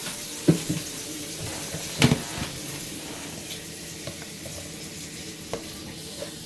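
Water running steadily at a kitchen sink tap as hands are washed, with a few sharp knocks and clatters, the loudest about two seconds in.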